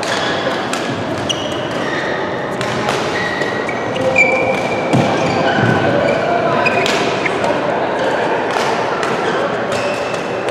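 Badminton rackets striking a shuttlecock in sharp clicks during a doubles rally, with short high squeaks of sneakers on the court floor. Rackets on neighbouring courts click throughout over the general noise of a large hall.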